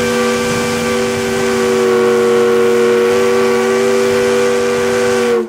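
Steam whistle blowing one long, loud blast, several notes sounding together over a hiss of steam, which dips slightly in pitch and cuts off suddenly near the end.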